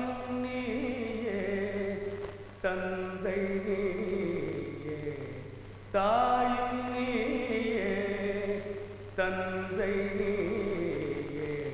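Film background score: a held, slow melodic phrase that restarts abruptly about every three seconds.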